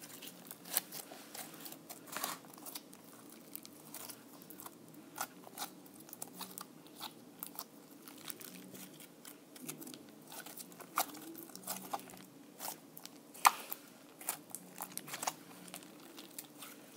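Blue butter slime (glue slime with clay kneaded in) being kneaded and squeezed by hand: irregular sticky squishing with many small pops and clicks, the sharpest pop about thirteen seconds in.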